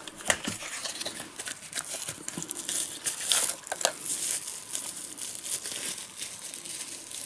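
Plastic wrapping crinkling and rustling in irregular crackles as hands unwrap a spare camcorder battery from its packaging.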